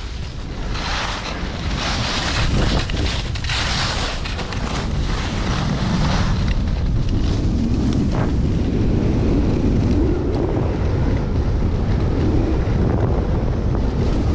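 Wind buffeting an action camera's microphone at skiing speed, mixed with the hiss of skis carving on groomed snow. The snow hiss comes in surges, turn by turn, over the first few seconds; after that a steady low wind rumble takes over.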